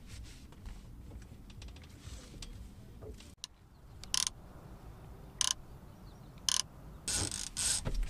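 Baitcasting reel's clicker ratcheting in short bursts about a second apart, then longer and closer together near the end, as a fish strikes a trolled lure and pulls line off the reel in its rod holder.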